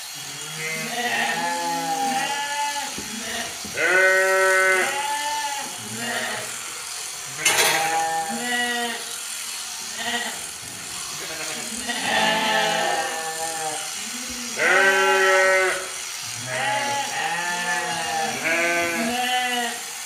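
Sheep bleating over and over, several calls overlapping at different pitches, the loudest about four, twelve and fifteen seconds in. A single sharp click about seven and a half seconds in.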